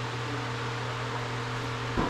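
Steady machine hum with an even hiss running underneath.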